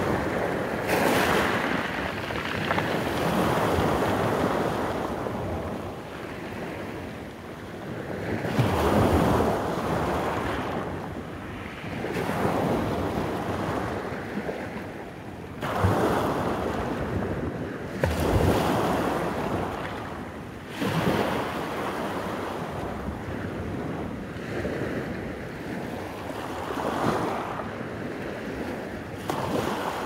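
Small sea waves breaking and washing up over a beach of rounded pebbles. The surf hisses steadily and swells loudest every few seconds as each wave comes in.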